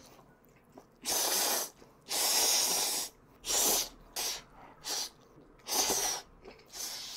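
A person slurping spicy instant ramen noodles close to the microphone: a run of about seven separate slurps, the longest lasting nearly a second.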